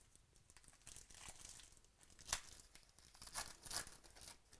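A foil trading-card pack wrapper (2017 Panini Chronicles Baseball) being torn open and crinkled by hand. There is a sharp rip a little after two seconds in, and more loud crinkling near the end.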